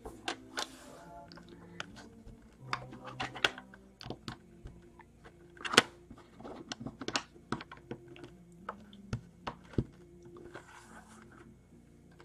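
Plastic LEGO bricks clicking and tapping as they are handled, pressed together and set down on a wooden table, an irregular string of sharp clicks, with faint music underneath.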